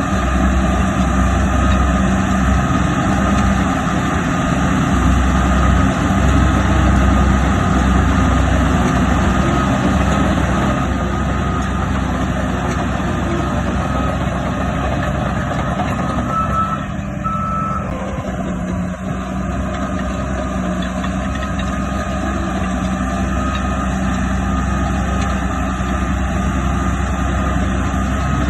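Heavy diesel earthmoving machinery running steadily, with a reversing alarm beeping throughout.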